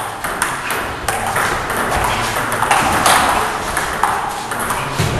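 Table tennis rally: the ball clicks quickly and irregularly off the bats and the table.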